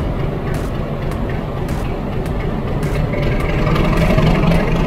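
YDM4 metre-gauge diesel locomotive's ALCO six-cylinder engine running with a low rumble, growing louder about three seconds in as it revs up.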